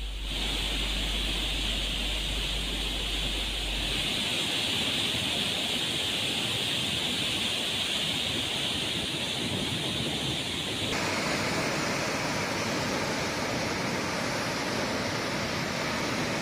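Floodwater rushing through opened dam spillway gates: a steady rush of churning water, with a low hum under it for the first four seconds. The sound changes character about four seconds in and again near eleven seconds, as the shots change.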